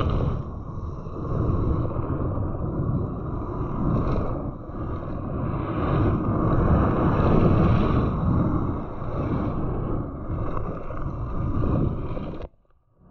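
Mountain bike descending a gravel road: wind rushing over the microphone mixed with the rumble and crunch of tyres on loose gravel, a dense steady noise that rises and falls with speed and breaks off briefly near the end.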